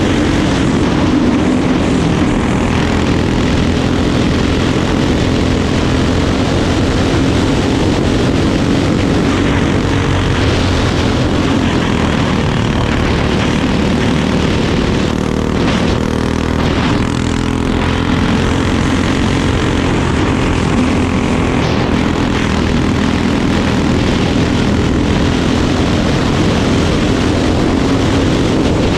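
Crate-class dirt kart's engine running hard at racing speed, heard onboard as a steady loud drone whose pitch wavers slightly through the turns, easing a little about halfway through.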